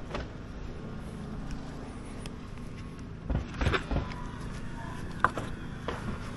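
An engine running steadily at a low hum, with a few knocks about three and a half seconds in and a single sharp click a couple of seconds before the end.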